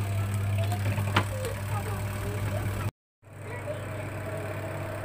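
Repaired electric motor of a twin-tub washing machine running again, a steady mains hum, with a sharp click about a second in. The sound cuts out for a moment about three seconds in, then the same hum resumes.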